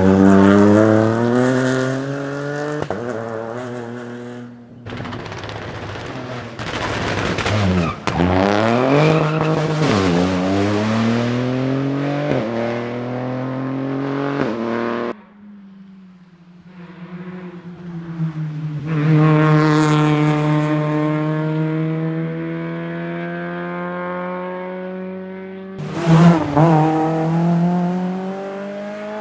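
Rally cars at full stage speed, engines revving hard and dropping in pitch through quick gear changes. In a run of separate passes the engine note climbs and falls sharply, then holds a long steady note, then revs up again near the end.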